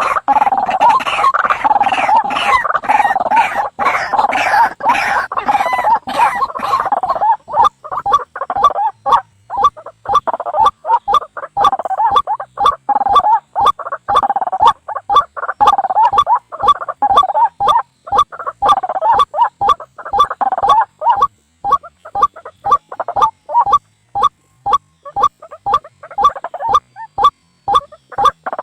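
White-breasted waterhen (ruak-ruak) calls played as a bird-trapping lure: dense, overlapping calling for the first seven seconds or so, then a fast run of separate short call notes repeated several times a second.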